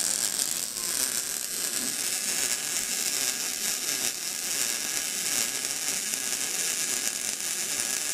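MIG welder laying a bead on steel, a steady, unbroken crackle.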